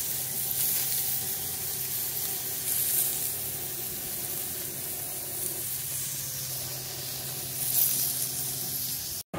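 USDA Select New York strip steaks sizzling steadily as they sear on a hot grill grate. The sizzle swells briefly about three seconds in and again near the end, then cuts off suddenly.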